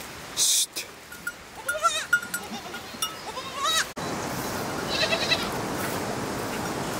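Goats bleating: several short, wavering calls close by in the first few seconds. About four seconds in, a steady hiss takes over, with a few fainter bleats.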